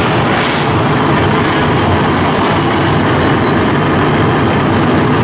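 The V8 engines of a field of NASCAR race trucks running together at low speed as the trucks pull out of their pit stalls: a loud, steady, low engine rumble.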